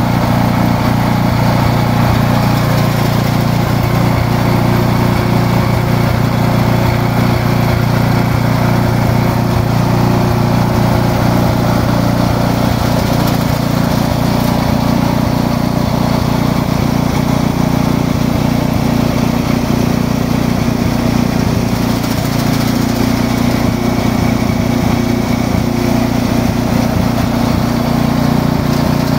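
Orange leaf-cutting machine running steadily together with a large floor fan during indigo leaf sorting: an even, unbroken machine drone with a low hum that does not change.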